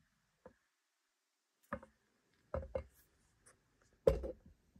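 Hands handling a 1:200 diecast model airliner, making short soft knocks and clicks as fingers grip and shift on it. There is a light tap early on, a close pair about halfway through, and the loudest knock near the end.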